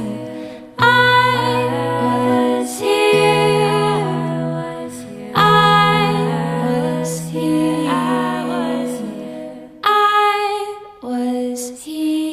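Soft background song in a gentle, lullaby-like style: melodic phrases over long held low notes, with no words sung.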